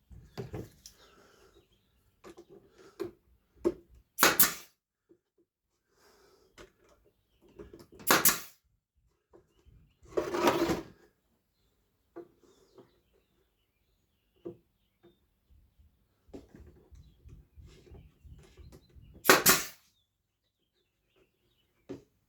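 Wooden pieces and tools handled on a workbench: scattered light knocks and taps, with four louder short scraping sounds, the longest about ten seconds in.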